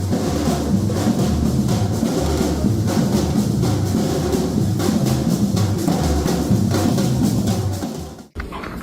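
Music with a steady drum-kit beat and heavy bass, cutting off abruptly near the end.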